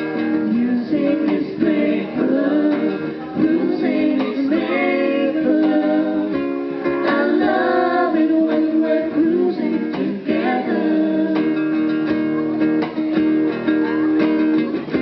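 Acoustic band music: strummed acoustic guitar with a voice singing over it.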